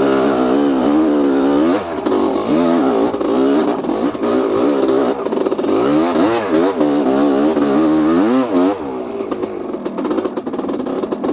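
The two-stroke single-cylinder engine of a 1985 Honda CR250R motocross bike revving up and down again and again as it is ridden over a trail. From about nine seconds in, the note becomes rougher and less steady, with irregular clattering.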